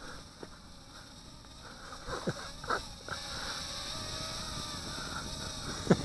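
Faint steady whine of a Parrot Airborne Night minidrone's small propellers as it hovers high overhead, with two brief louder sounds between two and three seconds in.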